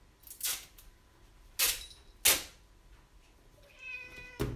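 Three short rasping bursts, typical of packing tape being pulled off the roll, then a cat meows once near the end.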